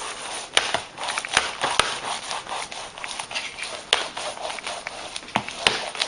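Hair dryer blowing, a steady rush of air, with many irregular sharp knocks and taps over it.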